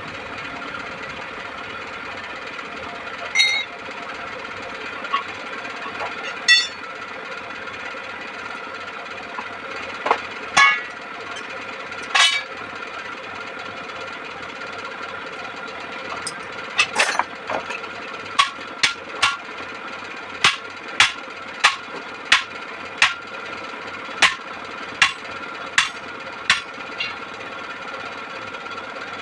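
Sharp metallic hammer knocks, a few scattered at first and then a steady run of about one or two a second through the second half, over a steady mechanical hum.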